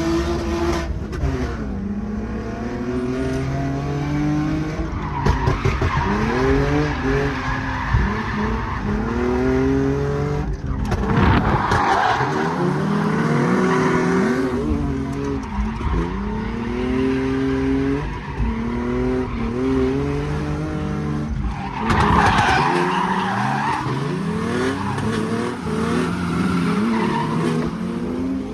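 Nissan 350Z drift car's V6 engine revving up and falling back again and again through a drift run. Twice, the tyres slide on the wet track with a loud hiss.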